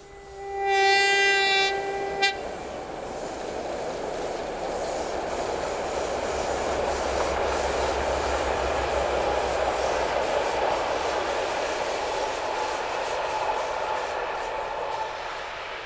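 Diesel locomotive V200 033 sounds one horn blast of about two seconds, then hauls a train of passenger coaches past across a steel girder bridge. The rolling noise of engine and wheels builds to its loudest in the middle, with faint clickety-clack of wheels over rail joints, and eases near the end.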